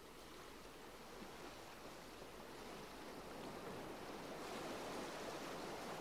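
Faint wash of sea waves, a soft even rushing that slowly grows louder.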